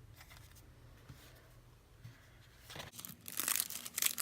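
Crinkly packaging being handled: a quick run of crisp crackles and rustles that starts a little under three seconds in, after a quiet stretch.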